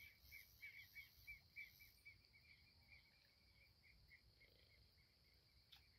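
Faint insects chirping in a quick, even rhythm of several chirps a second over a steady high-pitched drone, with one short click near the end.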